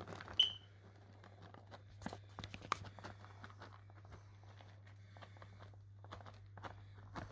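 Scattered soft rustles and light taps of vegan cheese being added by hand onto tortilla pizzas. A short, sharp high ping comes about half a second in, and a low steady electrical hum runs underneath.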